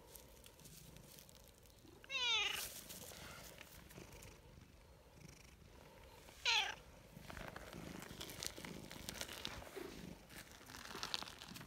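Tortoiseshell cat meowing twice, two short calls about four seconds apart, and purring softly while being stroked.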